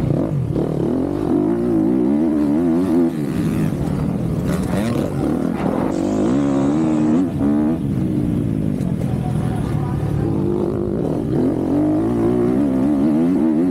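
MX2-class motocross bike engine heard close from onboard while racing, its pitch repeatedly climbing and dropping back as the throttle is worked.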